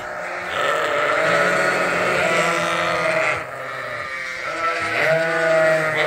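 A flock of ewes and lambs bleating loudly, many calls overlapping, with a brief lull a little past halfway.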